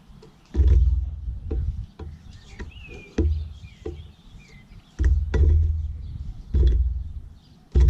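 A series of sharp knocks, each with a dull low thump, about five in eight seconds at uneven spacing, with faint bird chirps and short falling whistles behind them.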